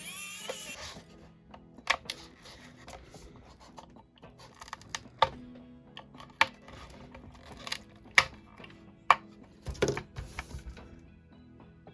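Scattered sharp clicks and knocks of small tools and screws against the speaker's plastic housing as the charging-port cover is unscrewed and pried off, about six distinct hits, over faint background music.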